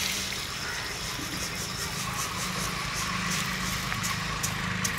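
Whole dry spices (coriander seeds, dried red chillies, pepper, cumin, fennel) poured from a steel pan into a steel mixer-grinder jar, a continuous pour of seeds into metal, with a couple of sharp clicks near the end. A steady low hum runs underneath.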